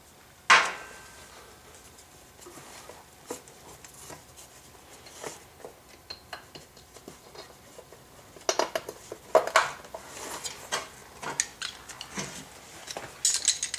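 Clicks, taps and clatter of hard plastic and metal parts being handled as the spark plug cap and access cover are refitted on a Suzuki Address V100 scooter, with one sharp knock about half a second in and busier bursts of clicking near the middle and the end.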